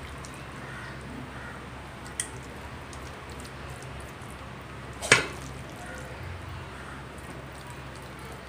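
Spoon spreading thick beef masala over the bottom of an aluminium pot, with two sharp clicks of the spoon against the pot, a small one about two seconds in and a louder one about five seconds in, over a steady low hum.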